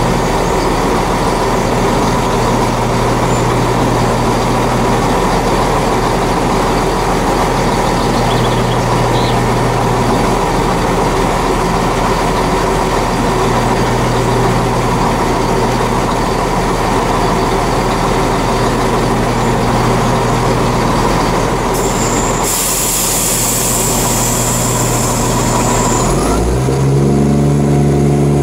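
Diesel multiple unit idling at the platform with a steady engine drone. A hiss of air about three-quarters of the way through, then near the end the engine note rises as it powers up to pull away.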